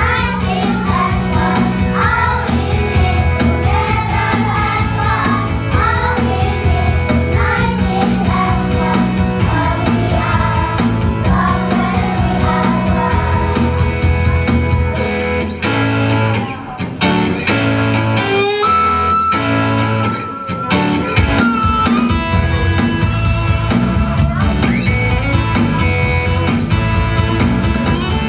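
A group of children singing a song together over backing music. Around the middle the voices drop back for several seconds while the music carries on.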